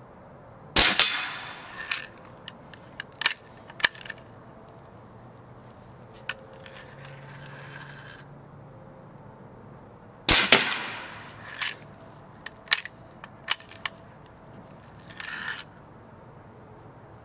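Homemade .50 calibre QEV air cannon, a pneumatic muzzleloader dumping compressed gas through a quick exhaust valve, fires twice about nine and a half seconds apart. Each shot is a sharp, loud crack with a short fading echo, followed by a few lighter clicks and knocks.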